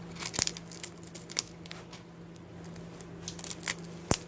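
Ice cream cone pieces crunching and crackling in scattered small clicks, with one sharp click about four seconds in, over a steady low hum.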